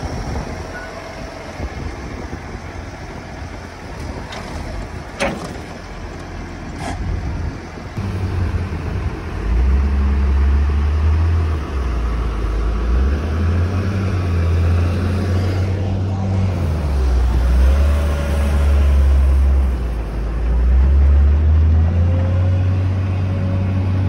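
Farm tractor engine running as it drives about the yard towing a feed-mixer wagon, the low rumble growing much heavier from about eight seconds in and swelling and easing in long stretches. Two sharp clicks come about five and seven seconds in.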